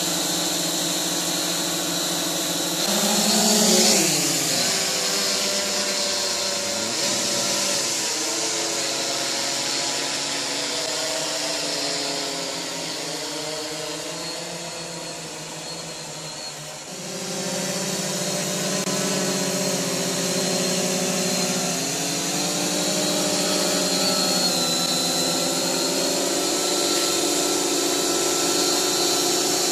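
Sky Hero Spyder 700 octocopter's eight electric motors and propellers, in coaxial X8 layout, buzzing in flight. The pitch of the drone bends up and down as the motors change speed. It fades in the middle and comes back louder about halfway through.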